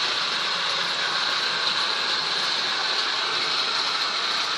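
Heavy rain falling during a thunderstorm, a steady even hiss.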